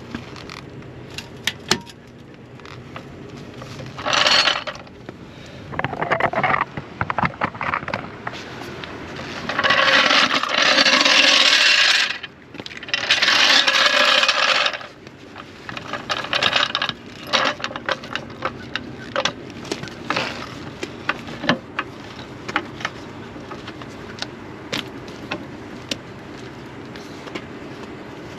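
Cordless 1/2-inch impact wrench run in a series of short bursts on lug nuts, each starting and stopping sharply, the longest about two seconds. Metallic clicks and clinks of lug nuts and tools are scattered between the bursts.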